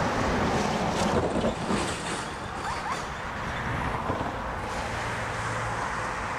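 Diesel-hauled freight train approaching slowly: a steady rumble and running noise from the locomotives and cars, with a low engine hum that grows in the second half and a few faint clicks.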